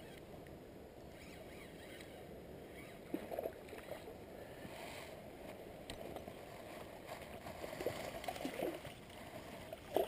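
Steady flow of a small river, with a hooked rainbow trout splashing at the surface several times as it is reeled in, the loudest splashes about three seconds in and near the end.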